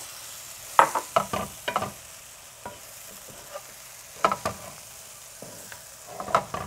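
Diced potatoes and onions sizzling in oil in a stainless steel frying pan, with a steady faint hiss. They are stirred with a wooden spatula in three short bouts of scraping and clatter: about a second in, just after four seconds, and near the end.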